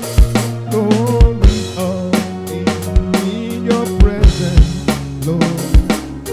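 Worship band playing an instrumental passage: a drum kit with kick and snare hits over a steady bass line and pitched instruments.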